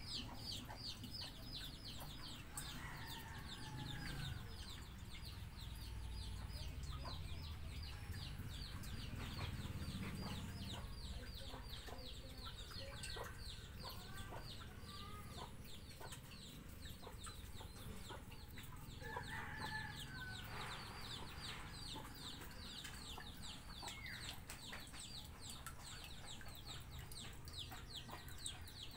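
Outdoor ambience: a high chirping repeating several times a second, with a few lower animal calls now and then over a low rumble.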